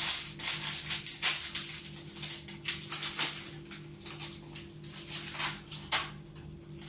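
Curd-cheese (tvorog) packet crinkling and rustling as it is squeezed and handled, in quick irregular crackles, over a steady low hum.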